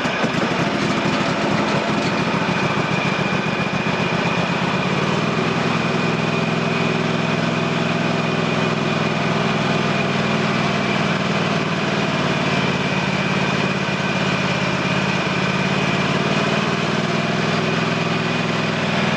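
Husqvarna TS348D lawn tractor engine idling steadily, warming up after a cold start.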